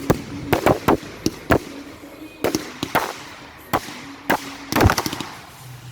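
Fireworks going off in an irregular string of sharp bangs, sometimes several in quick succession, with the loudest cluster shortly before the end.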